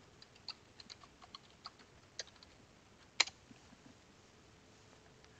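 Computer keyboard typing, a quick run of quiet key clicks as a password is entered, then one louder, sharper click about three seconds in as the login is submitted.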